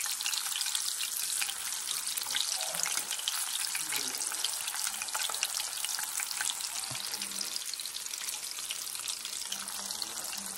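Wonton dumplings frying in oil in a pan: a steady sizzle with many fine crackling pops.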